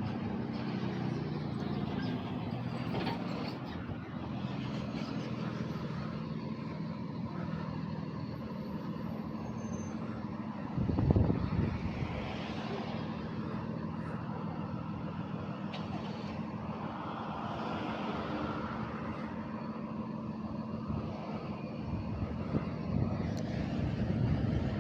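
A steady low mechanical hum, with one short, louder burst about eleven seconds in.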